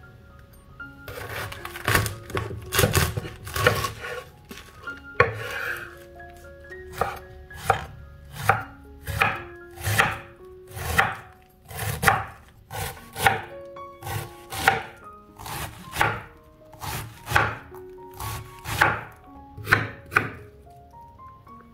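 Chef's knife slicing through a head of white cabbage onto a wooden cutting board, a crisp crunch ending in a knock of the blade on the board with each cut, about one cut a second.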